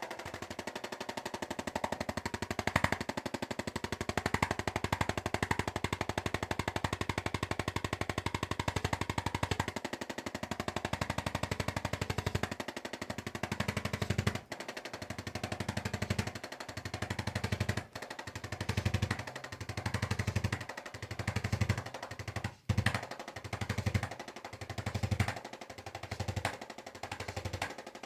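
Electric percussion massager running with a fast, steady rattle. From about ten seconds in a deeper low thudding comes and goes roughly once a second as the head is pressed into the back and eased off.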